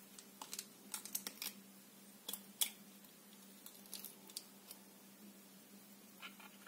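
Quiet clicks and crackles of eggshell as a just-cracked hen's egg is pried open by hand and the white separated from the yolk over a small ceramic bowl, with two sharper clicks a little over two seconds in.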